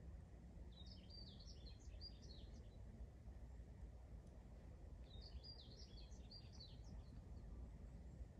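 A songbird singing two short phrases of rapid, jumbled high notes, about four seconds apart, over a faint steady low rumble of background noise.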